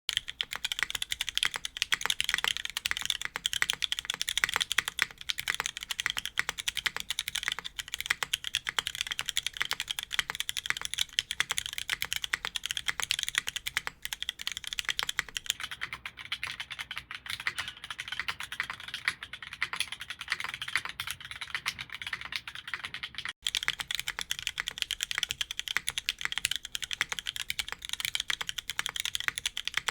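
Fast, continuous typing on an F1-8X V2 mechanical keyboard fitted with Cherry MX Blossom switches: a dense stream of keystroke clacks with no pauses.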